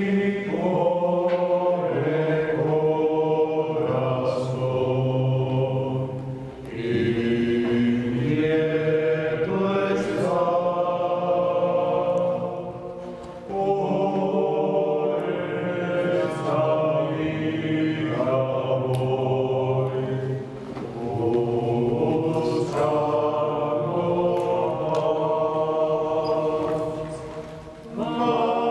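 A group of voices singing a hymn, in long phrases of about seven seconds each with a brief pause for breath between them.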